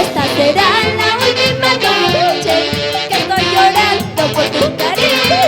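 Andean huayno band music: a wavering melody line with vibrato over a steady percussive beat.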